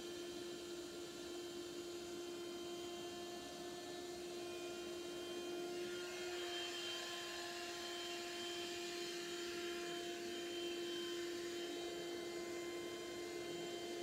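Small bagless vacuum cleaner running, its motor giving a steady hum with an even rushing hiss. It grows slightly louder about six seconds in.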